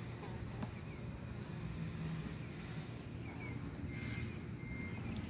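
Steady low hum of honey bees from an open nuc hive, with a couple of faint knocks as the wooden frames are handled. Short high chirps recur about once a second behind it.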